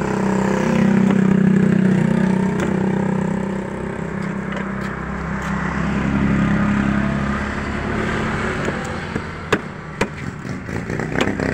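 Motor vehicles passing on the street, among them a motorcycle tricycle, their engines swelling twice. Sharp knocks of a knife hitting a wooden chopping block near the end.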